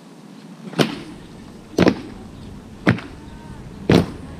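Honour guards' boots stamping on stone paving in a slow marching cadence: four sharp stamps about a second apart.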